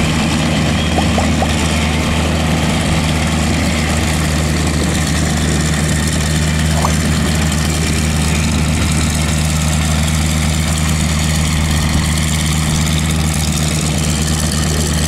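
A Boeing Stearman biplane's radial engine running steadily at low power as the aircraft taxis, its propeller turning.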